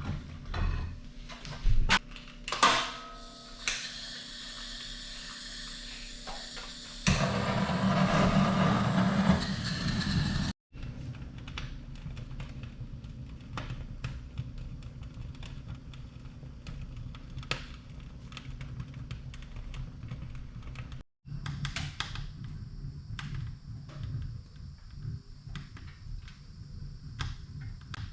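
Knocks and clatter of handling firewood around a metal wood stove, then many irregular sharp crackles typical of burning firewood, with a noisy stretch of a few seconds before the first cut.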